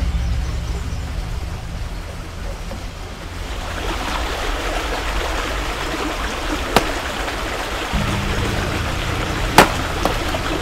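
Two sharp axe chops, about three seconds apart, the second louder, over a low steady hum and a rushing hiss.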